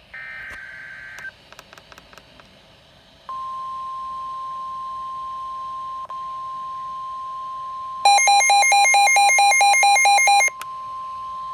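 NOAA Weather Radio warning broadcast: a short burst of digital data tones, a few clicks, then the steady 1050 Hz weather alert tone starting about three seconds in. For about two and a half seconds in the middle of the tone, a loud, fast electronic beeping of about five to six beeps a second sounds over it.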